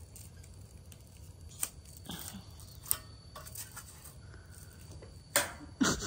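Scattered clicks and light knocks from a portable gas stove and its folding aluminium windscreen being handled, with two louder knocks near the end.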